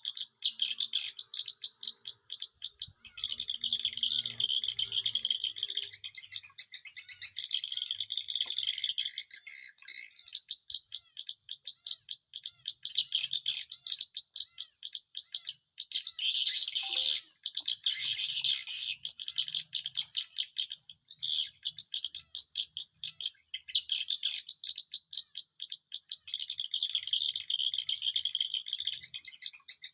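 Swiftlet calls: dense, rapid chattering chirps and clicks, rising and falling in loudness in waves.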